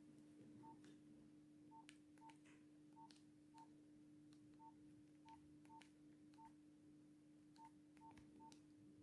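Faint, short single-pitch keypad beeps from a Nokia X1-01, about a dozen at uneven spacing, with a few faint key clicks, as the phone's buttons are pressed. Underneath is a faint steady hum.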